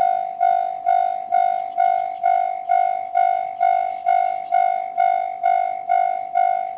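Japanese level-crossing warning bell, the JR Central (JR Tōkai) type electronic sound, ringing steadily at about two dings a second, each ding fading before the next: the crossing is signalling that a train is approaching.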